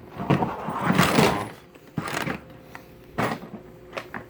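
Hard plastic Milwaukee Packout organizer being handled, grabbed by the front and worked off the interlocking stack: a scraping rattle over the first second and a half, then several sharp plastic clicks and knocks.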